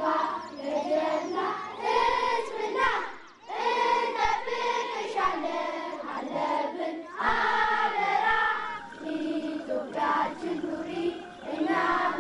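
A group of children singing together in phrases, with a short break about three seconds in.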